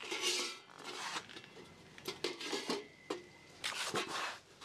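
A rolled sheet-metal cylinder being lifted off the steel rollers of a homemade roller bender, giving a scatter of light metallic clinks and rattles with a faint brief ring in the middle.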